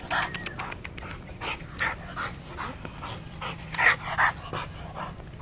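Pit bull–type dog panting hard through its open mouth, quick uneven breaths.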